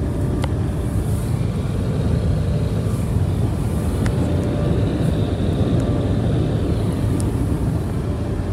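Car wash air dryers blowing on the car, a steady loud rush of air heard from inside the car's cabin.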